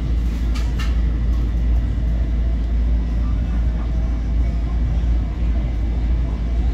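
Long Island Rail Road commuter train heard from inside the car while running along the tracks: a steady low rumble, with a couple of sharp clicks about half a second in.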